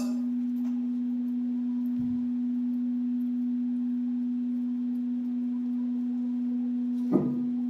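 A steady pure synthesized tone held at one pitch, played by a Csound band-limited impulse train (BLIT) oscillator demo set to its sine waveform. A brief low thump about two seconds in, and a short vocal sound near the end.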